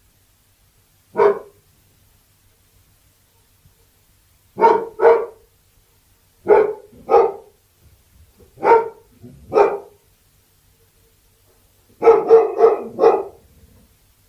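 Labrador retriever barking: a single bark, then three pairs a second or two apart, then a quick run of about five barks near the end.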